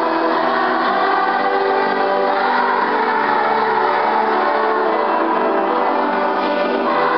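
Children's choir singing a Christmas song, holding long sustained chords that change about two seconds in and again near the end.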